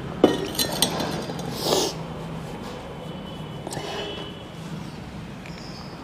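A stainless-steel vacuum flask is handled and set down on a small table, giving a few metallic knocks and clinks in the first second. A short breathy sniff follows just under two seconds in.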